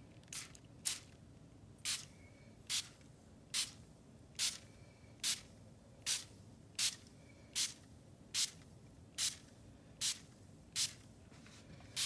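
Hand-pump water spritzer bottle misting in short squirts, about fourteen in a row at a steady pace of slightly more than one a second.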